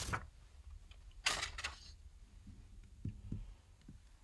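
A quiet pause in a close voice recording: a short breath about a second in, then a few faint soft clicks.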